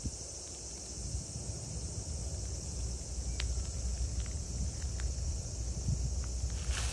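Outdoor ambience: a steady high-pitched insect drone over a low rumble, with a few faint ticks. Near the end comes a short burst of dry-leaf rustling.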